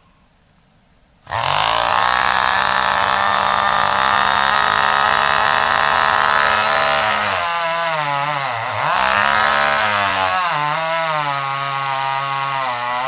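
Two-stroke chainsaw running at high revs, coming in suddenly about a second in; about halfway through its pitch drops and wavers up and down as the saw is loaded, typical of cutting into wood.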